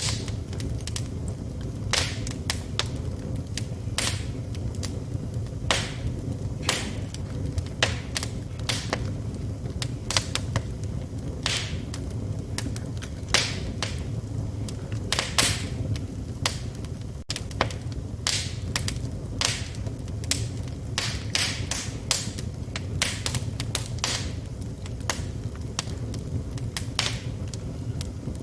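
Wood fire burning in a fireplace: a steady low rumble of the flames with irregular crackles and sharp pops from the burning wood.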